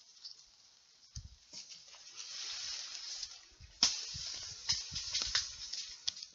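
Leaves and branches rustling close by, with scattered twig clicks, low thuds and one sharp crack about four seconds in.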